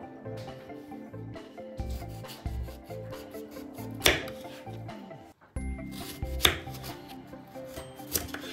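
Kitchen knife cutting through kiwi ends and knocking on a bamboo cutting board. Two sharp knocks come about two and a half seconds apart and are the loudest sounds, with a fainter third near the end. Background music plays throughout.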